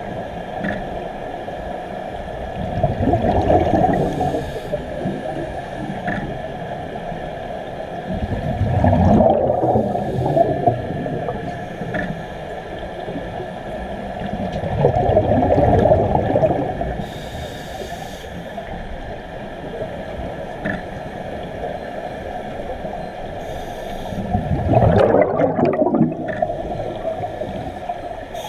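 Scuba diver breathing through a regulator underwater: four bubbling exhalation bursts of two to three seconds each, every five to ten seconds, over a steady underwater hiss.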